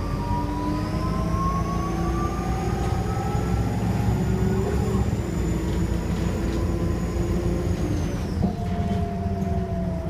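Optare Solo bus's turbocharged diesel engine pulling hard, with a high turbo whistle that rises slowly and holds over a steady low engine rumble. Near the end the whistle falls away and the engine note drops.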